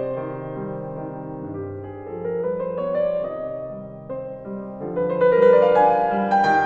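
Piano music, a melody of held notes that climbs about halfway through.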